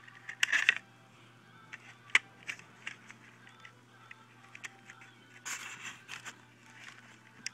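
Small plastic clicks, taps and scrapes of an HO-scale model locomotive's hood being fitted back down over its DCC decoder, with a louder clatter just after the start and a short scrape about two-thirds of the way in.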